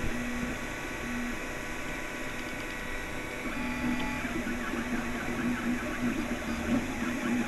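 Anet A8 3D printer printing: its stepper motors whine in short, shifting tones as the print head traces the first layer, over a steady hiss from its cooling fans. The motor tones come more often from about halfway in.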